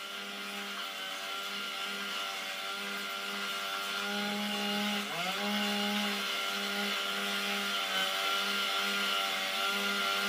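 Motor-driven saw running steadily as it cuts into oil shale. Its pitch dips briefly about five seconds in and again near the end, as the blade loads.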